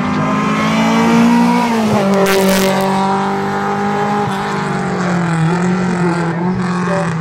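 Rally car engine at high revs passing close by: its note drops as it goes past about two seconds in, with a brief hiss just after. It then holds a steady high-revving note as it pulls away down the road.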